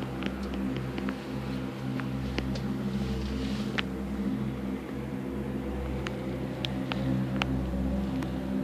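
A steady low mechanical hum with scattered light clicks and ticks.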